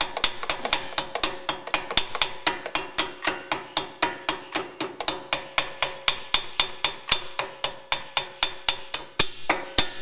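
Rapid, steady light taps, about four a second, driving the metal pad-retaining pin through a Porsche 997 rear brake caliper. Each strike has a short metallic ring.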